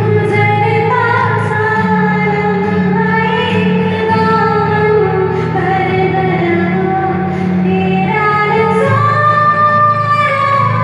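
A high voice singing a slow melody over music, with long held notes that bend up and down, above a steady low accompaniment.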